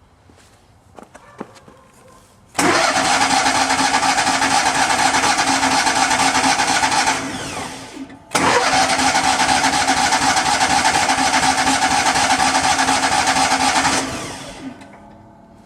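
Miller Bobcat 250 welder-generator's gasoline engine being cranked by its starter in two long bursts of about five seconds each, turning over steadily without catching. The engine won't start, and the owner suspects it is flooded.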